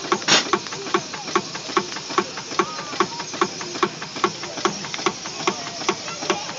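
Steam traction engine idling, with a steady clacking knock about four to five times a second, which the owner puts down to a rod bearing and does not think bad. A short hiss of steam about a third of a second in.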